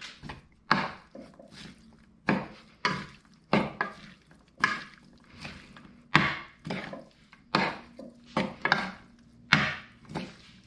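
Hands tossing a dressed corn and tomato salad in a large bowl: irregular wet rustling strokes of the chopped vegetables, about two a second.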